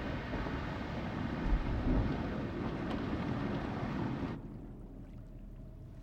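Steady noisy underwater rumble of a deep-sea hydrothermal vent. It cuts off abruptly about four seconds in, leaving a much quieter low hum.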